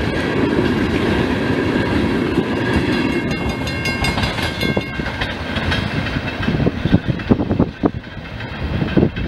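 Freight train of tank cars rolling past close by: a steady rumble of wheels on rail with clickety-clack. Over the last few seconds the rumble thins and the wheel clicks over rail joints come through as separate sharp knocks.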